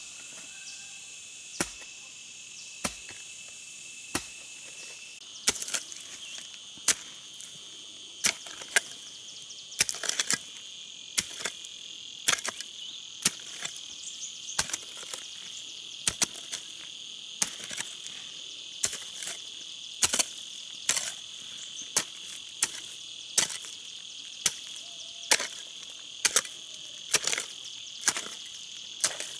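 A steady, high-pitched chorus of insects, crossed by repeated sharp knocks about once a second. The knocks come closer together from about five seconds in, some of them in quick pairs.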